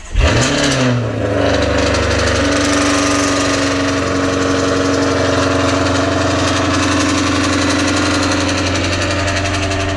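Jaguar F-Type R's supercharged V8 starting up: it fires, flares briefly in revs and then settles within a couple of seconds into a steady, loud idle.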